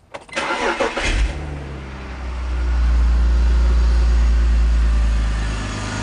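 BMW E46 3-Series inline-six engine cranked by the starter, catching about a second in and settling into a steady idle that grows a little louder around two and a half seconds in. It runs smoothly with no misfire on fresh spark plugs.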